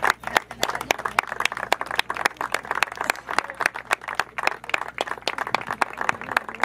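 A small group of people applauding, with individual hand claps distinct.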